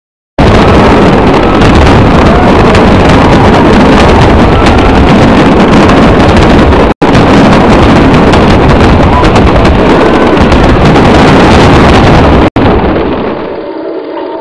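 Fireworks display going off as a loud, dense, continuous crackle, broken by two brief cuts. About thirteen seconds in it gives way to a much quieter, muffled sound.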